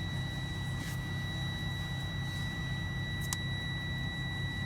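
A truck cab's warning buzzer sounding as one continuous high-pitched tone. It is the low-air alarm: the air tanks are empty and the air gauges are down. Under it runs a steady low rumble, with two faint clicks about a second in and past three seconds.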